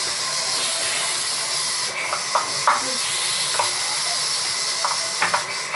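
A steady hiss with scattered small clicks and taps as a screwdriver works the wiring at an electric water heater's heating element and thermostat.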